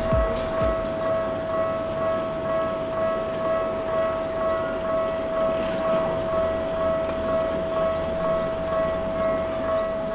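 Japanese railway level-crossing warning alarm on the Tokyu Setagaya Line, ringing steadily with an evenly repeating ding at a little under one and a half strikes a second. A few low knocks sound in the first second.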